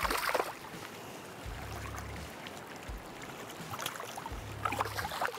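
River water running, with wind buffeting the microphone in gusts. Short splashes come near the start and again near the end as a small smallmouth bass is drawn in to hand.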